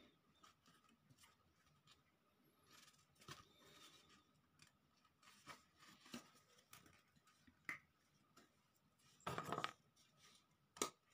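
Faint clicks, taps and rustles of thin cut-out wooden craft pieces being handled, with a louder burst of handling noise about nine seconds in and a sharp click near the end.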